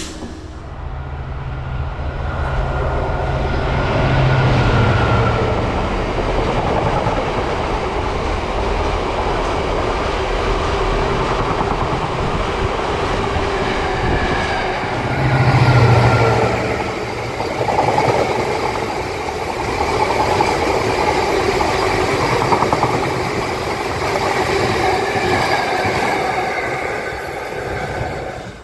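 Freight train of empty container flat wagons passing close by, the wagons rumbling and clattering over the rails. A diesel locomotive's engine hum swells twice, about four seconds in and again, loudest, about sixteen seconds in.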